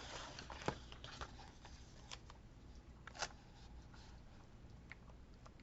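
Faint handling of paper and stickers: light rustling with a few soft clicks and taps, the sharpest about two thirds of a second in and about three seconds in.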